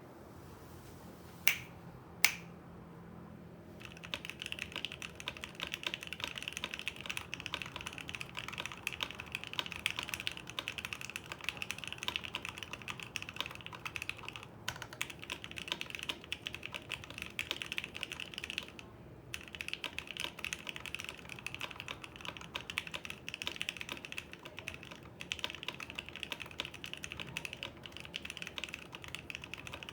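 Typing on a Fuji 65 custom mechanical keyboard with a carbon fibre plate, lubed and filmed Seal linear switches and CRP R3 keycaps: a fast, steady run of keystrokes with a couple of brief pauses. Two sharp, louder clicks come about one and a half and two seconds in, before the typing starts about four seconds in.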